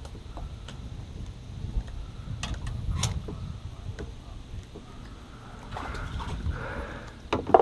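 Scattered clicks and knocks of rod, reel and kayak handling over a low wind rumble on the microphone, with one sharper, louder knock near the end, as a kayak angler works a snagged line he has to break off.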